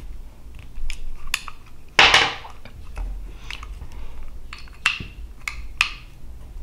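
Light metal clicks and taps of a Ruger 10/22 trigger group and receiver being handled while the front cross pin is pushed in by hand, with a louder scraping rustle about two seconds in.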